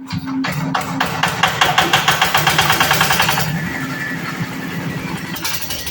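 Corn sheller machine running, with a steady mechanical hum and a rapid, even clattering that eases about three and a half seconds in.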